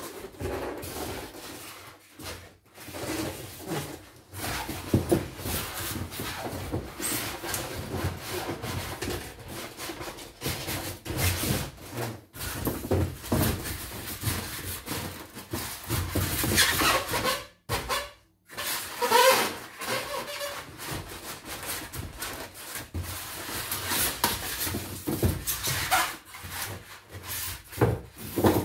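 Moulded polystyrene packing blocks rubbing and scraping against each other and against a cardboard box as they are handled and pushed into place. Irregular scrapes with short pauses, and a few brief squeaks past the middle.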